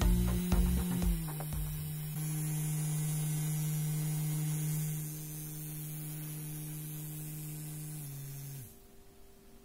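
Small brushed DC motor, run from a bench power supply at about one volt, humming steadily as it spins. Its pitch steps down about a second in and again about eight seconds in as the supply voltage is turned down, then it winds down and stops shortly before the end.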